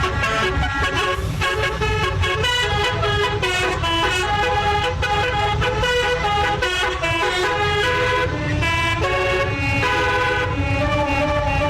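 Bus's basuri telolet horn playing a melody of quickly changing tones, over a steady low rumble.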